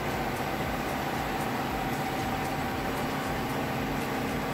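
Steady drone of running machinery in an offshore supply vessel's engine room, with a constant whine held on one pitch.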